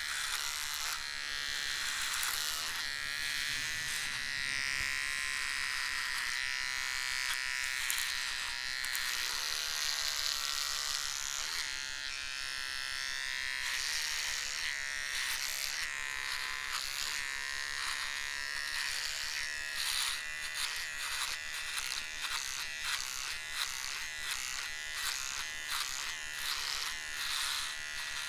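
Electric hair trimmer running with a steady high buzz. Short crackles come through it, more often in the second half.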